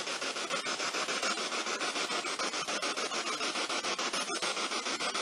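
Spirit box (ghost box) radio scanning through stations: a steady hiss of static chopped by rapid, even ticks as it sweeps.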